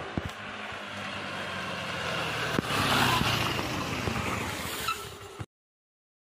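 Scooters, a Suzuki Access 125 and a Honda Activa 125, running hard as they race up and pass close by. The engine noise builds to its loudest about three seconds in, then cuts off suddenly about five and a half seconds in.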